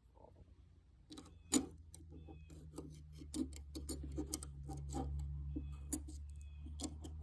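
Small metallic clicks and taps as a new blade is handled and fitted into a Husky folding lock-back utility knife, several a second with a brief metallic ring on some. A low steady hum runs underneath from about a second in.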